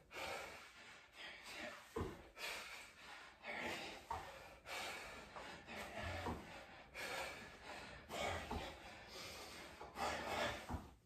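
A man breathing hard through a set of reverse lunges, a loud breath about every second. Soft thuds of bare feet landing on a yoga mat over a wood floor come every couple of seconds.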